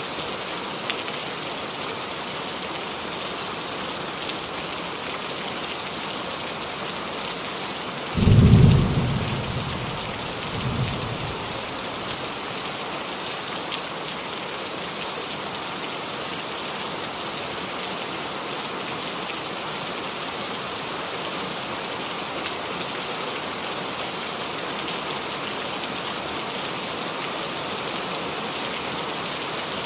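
Steady rain falling on a roof. About eight seconds in, a sudden low clap of thunder fades away over a second or so, and a weaker rumble follows about two seconds later.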